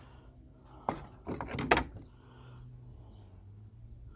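Loose plastic fittings from a bird bath and feeder kit knocking and clattering as they are handled: one knock about a second in, then a quick run of several knocks.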